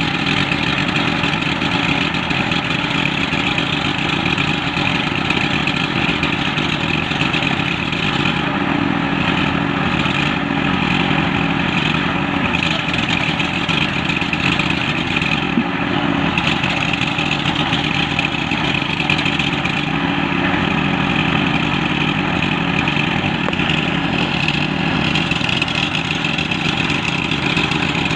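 Portable concrete mixer running steadily, its small engine holding a constant speed.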